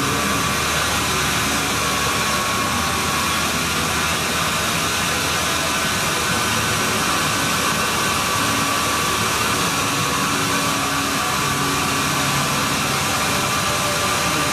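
Power sanding and polishing tool running steadily: an even hiss with a faint high whine, starting suddenly just before and holding level.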